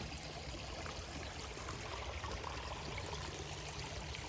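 A stream's water flowing steadily.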